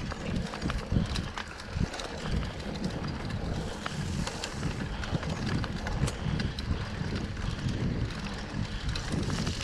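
Mountain bike rolling down a dirt trail: tyre noise over dirt and leaf litter, with frequent small clicks and rattles from the bike over bumps, and wind rumble on the camera's microphone.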